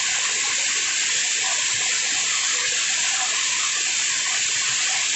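Waterfall: a steady, unbroken rush of falling water with a strong hiss.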